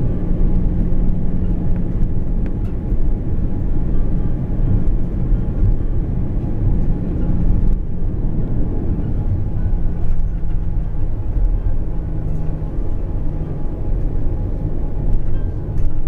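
Airbus A340-300 cabin during the landing rollout: a steady low rumble from the wheels on the runway and the CFM56 engines, with a humming tone that steps down in pitch about eight seconds in.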